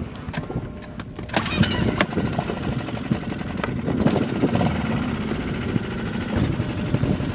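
Small outboard motor starting about a second in, then running steadily.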